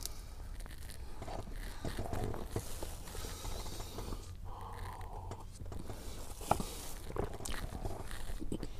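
Close-up eating sounds: chewing and biting a chocolate-coated tube pastry with a curd filling, with a sip of coffee from a paper cup partway through and one sharp click a little after six seconds.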